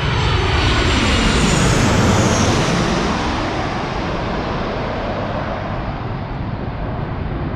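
Twin-engine jet airliner on landing approach passing low overhead. Its jet roar is loudest about a second or two in, with an engine whine falling in pitch, then slowly fades as the plane heads away toward the runway.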